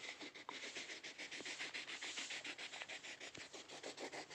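Yellow crayon scribbled back and forth on a workbook page while colouring in a picture, a fast run of short scratchy strokes, about six a second.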